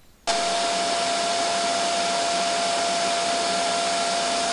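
Rocket engine at launch: a steady rushing noise with a constant whine above it, cutting in suddenly about a quarter second in.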